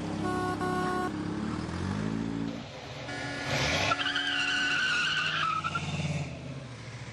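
A car horn honks twice in quick succession. An engine note then rises, followed by tires squealing in a wavering high tone for about two seconds.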